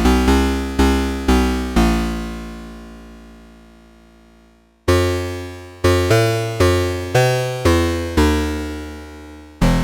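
Behringer 2600 analog synthesizer playing a sequence of low, plucked notes, each struck sharply and fading quickly. About two seconds in, one note is left to fade out slowly over about three seconds, then a quicker run of notes starts.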